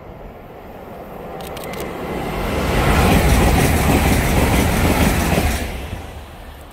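A train passing through a station at speed: its noise of wheels on rail builds over about three seconds, is loudest for about two and a half seconds, then dies away quickly.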